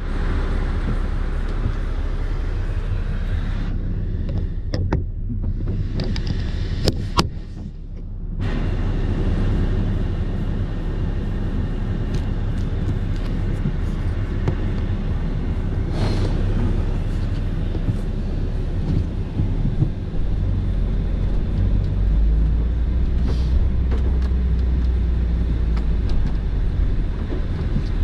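Van engine and tyre noise heard from inside the cab on a snow-covered road: a steady low rumble that gets heavier in the bass about twenty seconds in. A few light knocks come about five to seven seconds in.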